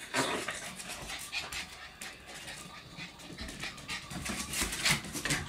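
A puppy panting in short, uneven breaths.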